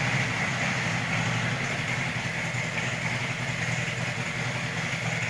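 Harley-Davidson Road King Classic's V-twin engine running steadily at an even, low engine speed.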